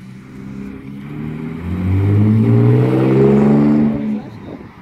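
Holden VS Commodore with a 2½-inch catback exhaust and twin 3-inch dump tip accelerating past, its exhaust note climbing steadily in pitch and getting louder over about three seconds, then falling away suddenly about four seconds in.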